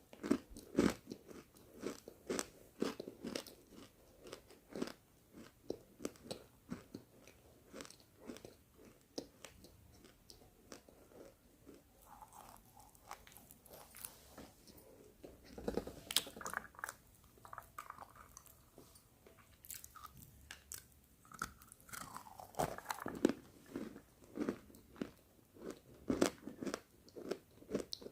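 Roasted pink chalk being bitten and chewed close to the microphone: crisp, irregular crunches. They thin out for a few seconds in the middle, then come thick again.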